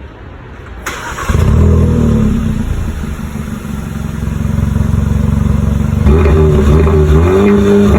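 2022 Kia Forte GT's 1.6-litre turbocharged four-cylinder through its stock exhaust: a click, then the engine catches about a second in, runs at raised revs briefly and settles to a steady idle. Near the end it is revved up and down with the throttle.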